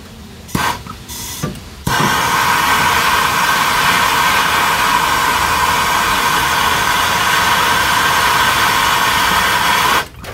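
Handheld gas torch flame hissing steadily for about eight seconds, heating seized brake line nuts at a master cylinder to loosen them. It starts suddenly about two seconds in and cuts off abruptly near the end.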